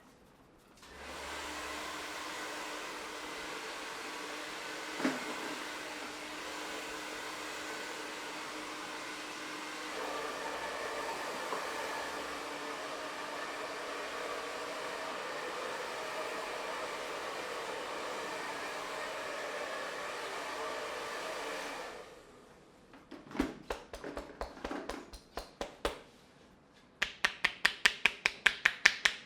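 A small motor running steadily with a whirring hum for about twenty seconds, a little louder about halfway through, then cutting off. A few scattered clicks follow, then a fast, even run of loud clicks near the end.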